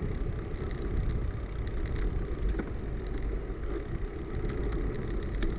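Low steady rumble of a bicycle rolling over rough road, with small scattered ticks and rattles, as picked up through the bike-mounted camera's microphone.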